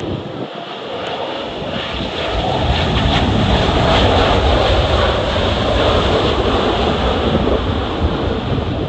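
Jet airliner passing close, its engine noise building over the first few seconds and staying loud, with strong wind buffeting the microphone.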